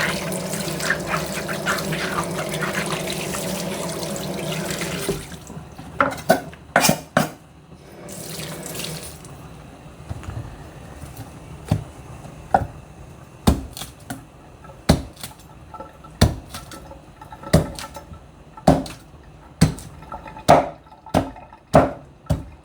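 Tap water running into a sink or container for about five seconds, then stops. After that come short, sharp knocks, about one a second, the kind made by things being set down or handled on a hard kitchen surface.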